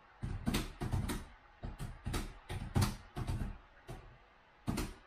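Typing on a laptop keyboard: keys struck hard in quick, irregular runs of clicks and thuds, with a short pause near the end.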